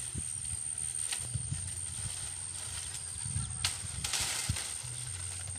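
A long bamboo pole rustling and knocking through mango-tree branches: a few sharp knocks and a burst of leaf rustle about four seconds in, over a low uneven rumble.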